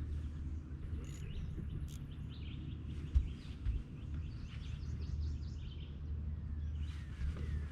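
Birds chirping faintly over a steady low hum, with a single sharp knock about three seconds in.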